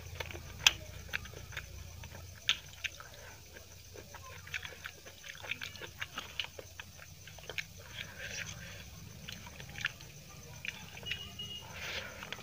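Close-up eating sounds of chicken biryani eaten by hand: wet chewing and mouth smacks, with fingers mixing rice against a steel plate. Many short sharp clicks throughout, two louder ones about half a second in and at two and a half seconds.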